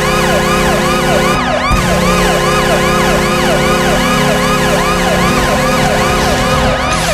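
Washington Capitals arena goal horn sounding a steady chord, with a siren sweeping up and down about twice a second over it.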